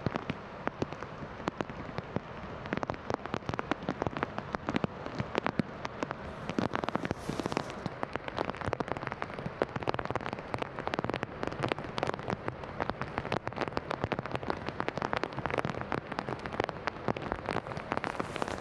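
Rain falling, its drops landing close to the microphone as a dense, irregular run of sharp clicks.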